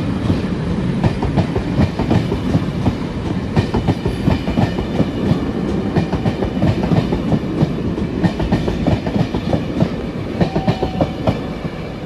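Loco-hauled passenger coaches of a departing train rolling past close by, their wheels clattering in repeated clusters over rail joints. The clatter starts to fade as the last coach goes by near the end.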